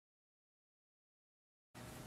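Near silence: the sound track is blank, with faint room hiss coming back just before the end.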